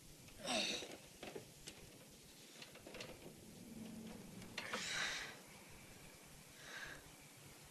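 Quiet room with a few short breathy sounds, the loudest about half a second in and another near five seconds, and faint clicks of small ceramic tea cups being handled.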